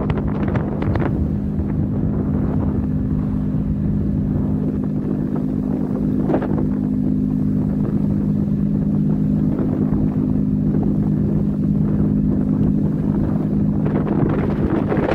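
Ship's engine running with a steady low hum, with wind buffeting the microphone in brief gusts near the start, about six seconds in and near the end.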